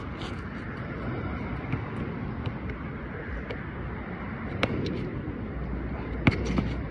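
Steady outdoor background rumble with a few sharp knocks of a basketball bouncing on a hard court, the loudest about four and a half and six seconds in.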